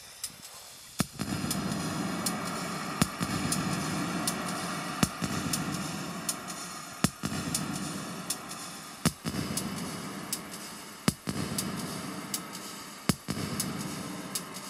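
Live electronic music from a portable synthesizer rig in a small case: a dense, noisy drone that comes in about a second in and swells and fades about every two seconds, with sharp clicks about once a second.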